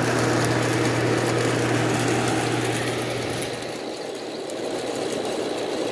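Hotpoint Port-A-Cool window air conditioner running, heard from its outdoor back side: a steady rush of the condenser fan with a low hum that fades out about three and a half seconds in.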